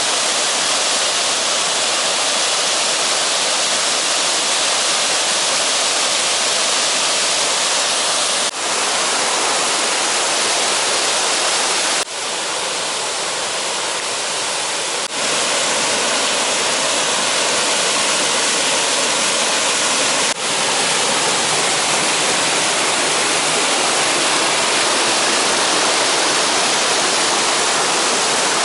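Falling water rushing steadily in a loud, dense hiss, with short dips and slight changes in tone where clips are joined, four times.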